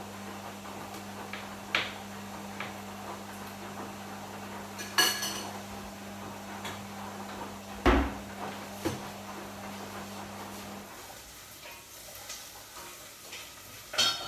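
Kitchen clatter of dishes and utensils being handled on a countertop: a few sharp knocks and taps, with ringing metallic clinks about five seconds in and near the end and a heavy thump about eight seconds in. A low steady hum runs underneath and stops about two-thirds of the way through.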